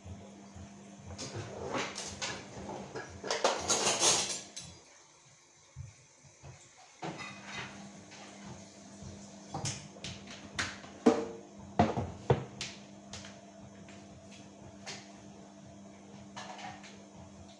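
Household handling sounds: a few seconds of rushing noise, then a quick run of sharp knocks and clinks as dishes or cupboard items are handled and set down.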